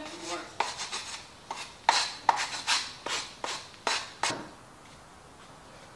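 Sandpaper rubbed by hand along the edges of a cut wood board in a dozen or so short strokes, knocking off the flaking, splintered edges. The strokes stop a little after four seconds in.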